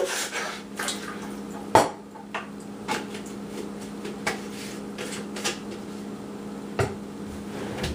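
Scattered knocks and light clatter of things being handled off-camera in a kitchen, with one sharper knock about two seconds in, over a steady low hum.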